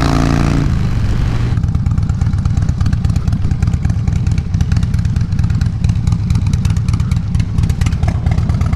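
Harley-Davidson Low Rider S's 110-cubic-inch Twin Cam V-twin running under the rider, first at road speed with wind noise. After about a second it is off the throttle and running at low revs with an uneven, pulsing rumble as the bike slows to a stop.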